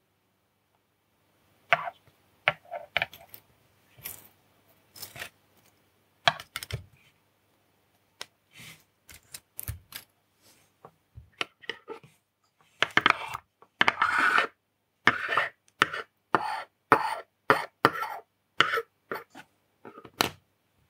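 Small clicks and taps of tweezers and a circuit board on a hard desktop while tiny SMD LEDs are handled and placed. The taps are scattered at first and come thick and fast in the second half.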